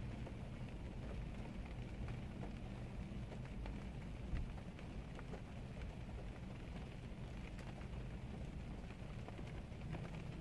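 Steady rain falling, with many small drops ticking and a low rumble underneath.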